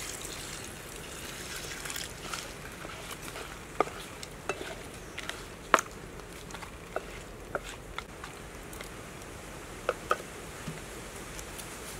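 Curry sauce sizzling in a frying pan over a wood fire while a wooden spatula stirs shell-on prawns, with scattered sharp clicks and knocks from the spatula and shells against the pan.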